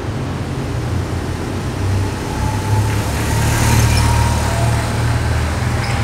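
Motor vehicle engine running with a steady low rumble over street noise, growing a little louder about halfway through.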